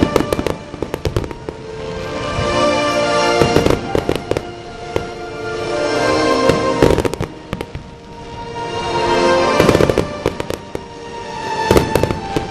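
Fireworks bursting and crackling in rapid clusters every few seconds, over music with sustained tones that swells and fades.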